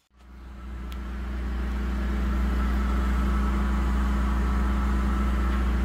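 An engine running steadily at a constant speed, a low, even drone that fades in over the first second or two.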